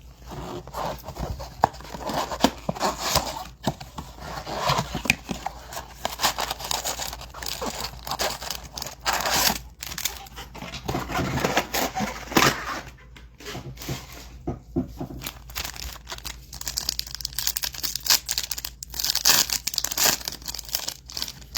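Trading-card box and pack wrappers being torn open and crinkled by hand: an irregular run of ripping and crackling with a few short pauses.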